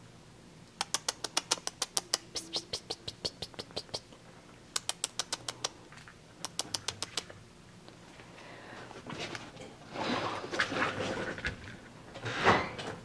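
Three quick runs of light, evenly spaced clicks, about seven a second. Then, from about two-thirds of the way in, rustling and bumping as a hand handles a puppy, loudest just before the end.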